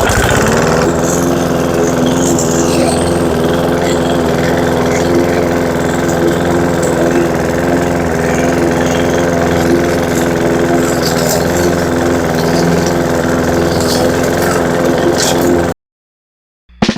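Rotary lawn mower's engine running at a steady speed as it mows up leaves, cutting off suddenly near the end.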